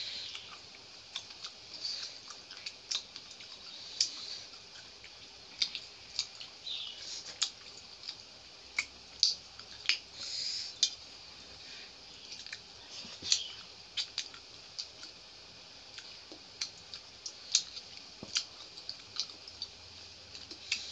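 Eating with the hands from stainless steel plates: irregular sharp clicks and wet smacks of chewing, and of fingers mixing rice and curry on the plate, a few a second.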